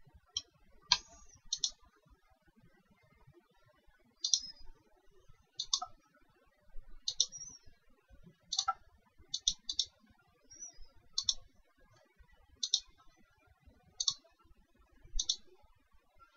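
Computer mouse button clicks: short, sharp clicks at irregular intervals of one to two seconds, several in quick pairs.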